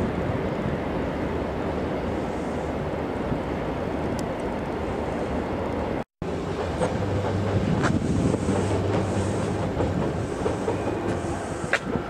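Electric train running along an elevated railway viaduct: a steady rumble of wheels on rail, with a few light clicks. The sound cuts out completely for a moment about halfway; before that there is a steady rumble of outdoor noise.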